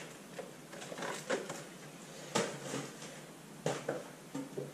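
Kitchen handling noises: a cardboard box of rusks rummaged and set down on a stone counter, then a wall cupboard door opened, giving a few scattered knocks and clicks over a light rustle, the sharpest about halfway through.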